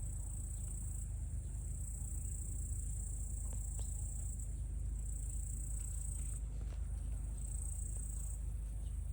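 Insects singing in a steady high-pitched chorus that swells and fades every second or two, over a low steady rumble, with a few faint ticks.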